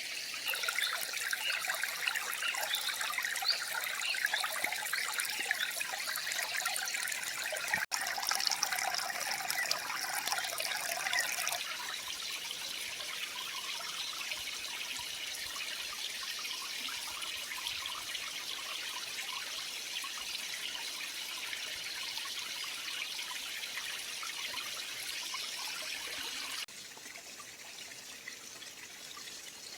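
Creek water trickling and babbling over stones. The sound changes abruptly a few times, a little busier in the first third and fainter near the end.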